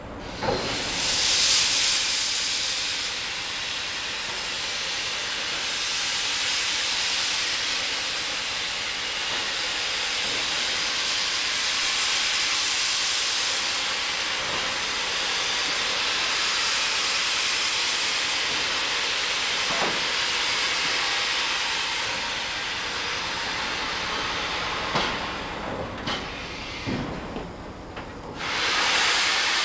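Steady hiss of steam escaping from class 52 steam locomotive 52 6106 as it stands under steam, with a few light knocks. The hiss drops away briefly near the end, then comes back.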